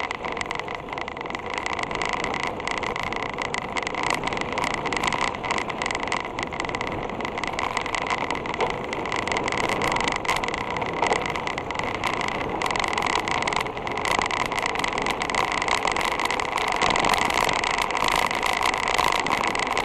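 Mountain bike rolling along a gravel dirt road, heard from a camera mounted on the bike: a steady rush of tyre and wind noise with constant small clicks and rattles from the loose gravel and the frame, and a steady whine running under it.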